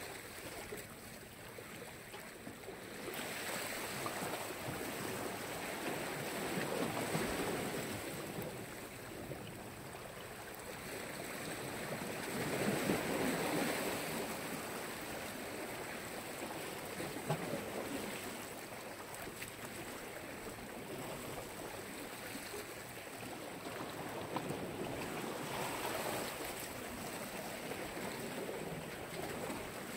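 Sea waves washing onto the shore, rising and falling in slow swells every several seconds, loudest about halfway through.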